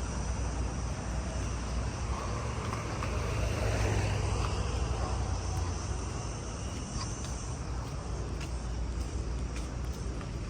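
Outdoor road ambience: a low traffic rumble that swells about four seconds in as a vehicle passes, with insects chirring faintly and steadily.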